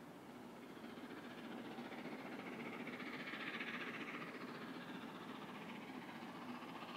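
Steam locomotive hauling a train of coaches as it approaches, its sound faint at first and growing, loudest about three to four seconds in.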